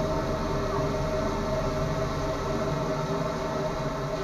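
High-pressure drain jetting machine running steadily while clearing a blocked drain pipe: a constant mechanical drone with several steady tones over a noisy hiss.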